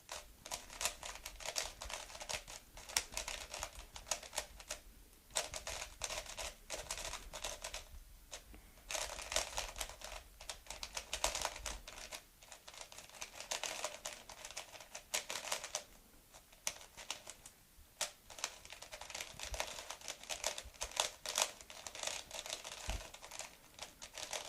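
MoYu Weilong V2 3x3 speedcube being turned quickly by hand: its plastic layers click and clack in rapid flurries of a few seconds with brief pauses between. The cube is straight out of the box, dry and set to very tight tensions.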